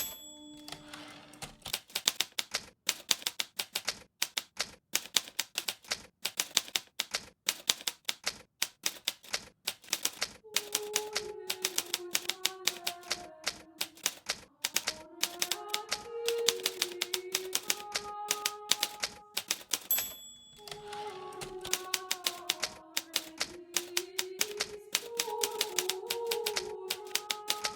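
Hermes Baby portable typewriter being typed on in quick, uneven bursts of key strikes. The line-end bell rings right at the start and again about twenty seconds in, each followed by a brief pause for the carriage return.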